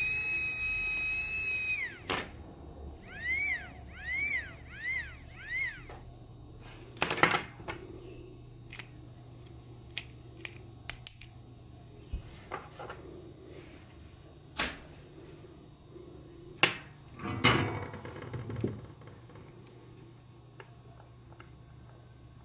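A small high-speed electric motor, such as one driving a modified spinner helicopter, whines at a steady high pitch. About two seconds in it cuts off and its pitch falls away. Five short whirs follow, each rising and falling in pitch, then scattered sharp clicks and knocks.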